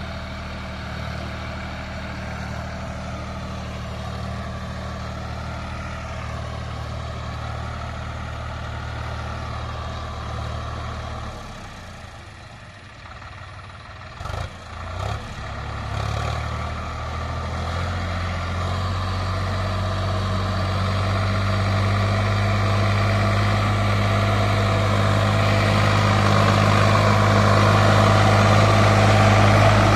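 Sonalika DI 50 RX 4wd tractor's diesel engine running steadily under load, pulling a trolley loaded with potato sacks. Midway it drops away briefly, with a couple of knocks, then grows steadily louder as the tractor comes closer.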